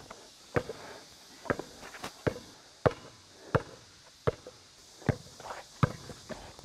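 A basketball being dribbled: a run of about nine sharp bounces, one every three-quarters of a second or so.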